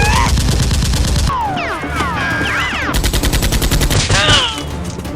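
Rapid automatic gunfire sound effects in two bursts: one stops about a second in, the next runs from about three to four seconds in. A few sliding tones are heard between the bursts.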